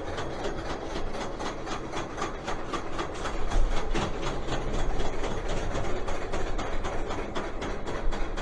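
Roller coaster climbing a chain lift hill: a rapid, even clicking over a low rumble.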